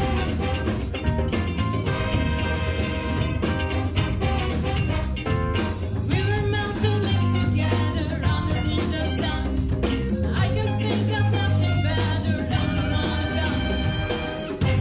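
Big band playing an up-tempo number: the horn section holds chords over bass and drums.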